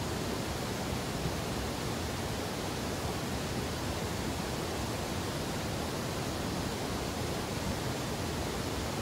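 Steady rushing of river water, an even noise with no distinct knocks or splashes.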